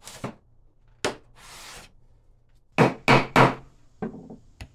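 A series of sharp knocks on wood during hand-tool woodworking: two single knocks, a short scraping rub, then three hard knocks about a third of a second apart and two lighter knocks near the end.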